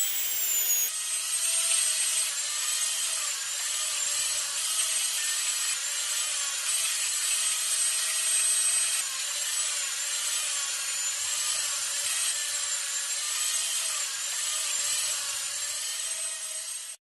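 Dentist's drill running as it drills into teeth: a high, steady whine over a grinding hiss, its pitch dipping and wavering now and then.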